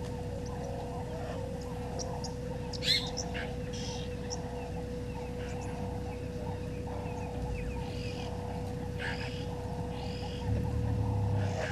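Outdoor waterhole ambience: birds chirping and calling on and off over a steady faint hum. The sharpest call comes about three seconds in, and a low rumble starts near the end.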